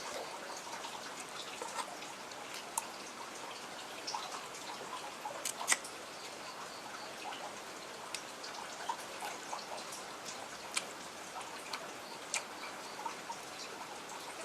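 A person chewing quail meat close to the microphone: scattered wet mouth clicks and smacks, a few sharper ones about five and a half seconds in.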